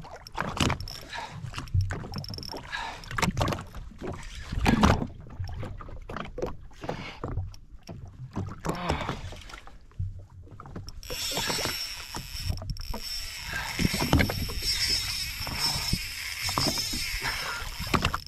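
Water slapping against a jet ski's hull, with irregular knocks of tackle being handled. From about eleven seconds in, a fishing reel gives a steady high whine as a hooked fish is fought.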